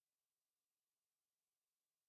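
Near silence: the audio track is essentially empty, with no audible sound.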